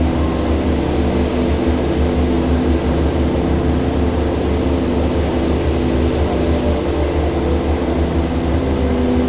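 River water rushing steadily, a deep, constant rumble without pauses.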